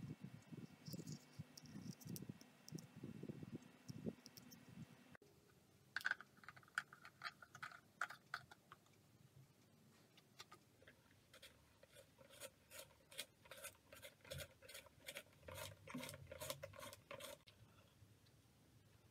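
Pencil being twisted in a small plastic hand-held pencil sharpener, its blade shaving the wood in a run of scraping clicks, about three a second, that stop shortly before the end. A few sharper scrapes come about six seconds in, and at first there is only a faint rustle of the sharpener being handled.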